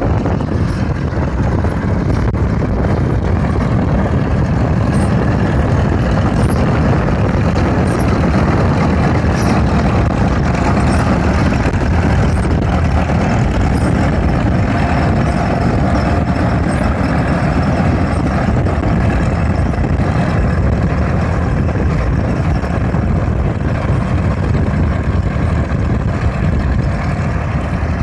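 Self-propelled windrower mowing a swath: its engine and cutting header running steadily and loud, close by.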